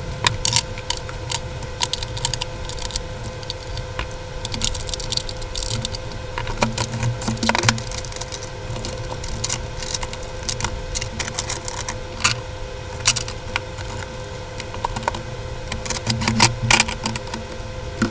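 Plastic makeup compacts and clear acrylic drawer organizers clicking and clacking as they are picked up, shifted and set down, in irregular bursts, over a steady hum.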